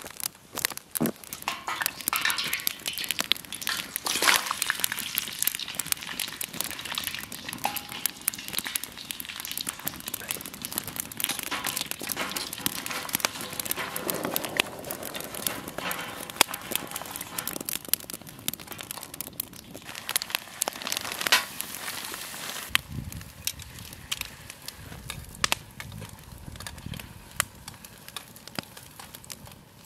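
Wood fire crackling in a fire pit, with many sharp cracks, while homemade fries sizzle in a small pot of oil on the grill grate above it.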